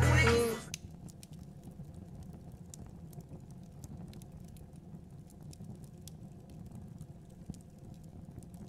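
Wood campfire crackling faintly, with scattered sharp pops over a low, steady rush. Hip-hop music cuts off within the first second.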